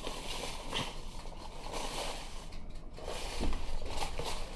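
Dry corn muffin mix pouring out of a cardboard box into a glass mixing bowl, with soft rustling and scraping of the box as it is shaken.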